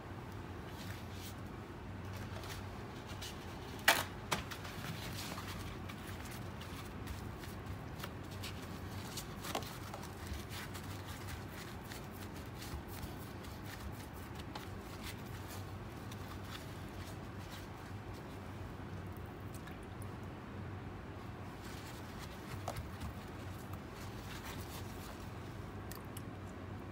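Paper towel rustling and pressing as hands wipe raw mackerel fillets dry, with scattered small ticks. Two sharp knocks about half a second apart come about four seconds in, over a low steady hum.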